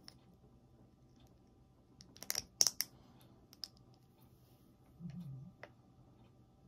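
Plastic blind-bag packaging crinkling and clicking in the hands as a small figure is unwrapped. The clicks are loudest in a quick cluster about two seconds in, with a few lighter single clicks later.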